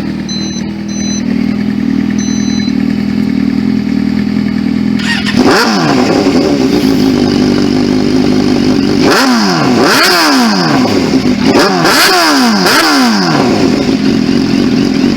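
Sport motorcycle with an aftermarket exhaust idling steadily, then revved: one sharp blip about a third of the way in and four quick blips later on, each dropping back to idle.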